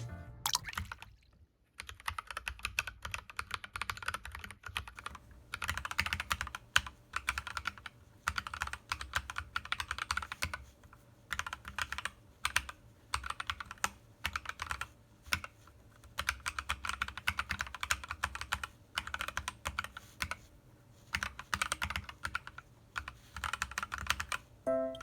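Typing on an AKKO Cinnamoroll mechanical keyboard fitted with silent pink switches: soft, muted key clicks in quick runs, broken by short pauses.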